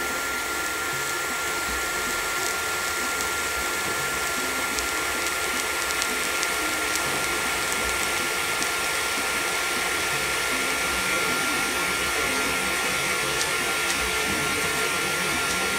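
TIG welding arc burning on 3 mm stainless steel sheet: a steady hiss with a thin, constant whine through it, while the filler rod is dabbed into the weld pool.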